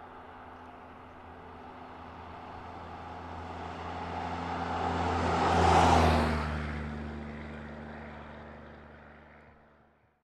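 A road vehicle passing close by on the road. Its engine and tyre noise swells to a peak about six seconds in, drops slightly in pitch as it passes, then fades away.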